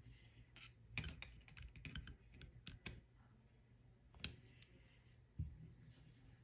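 Small metal clicks and taps of needle-nose pliers and brass jets against the carburetor body, a quick irregular run of them in the first three seconds, then a single click and a dull knock near the end.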